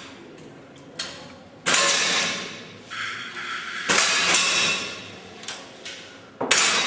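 Break-barrel rifle being worked: a light click about a second in, then three loud, sudden mechanical clacks about two seconds apart, each dying away over half a second or so.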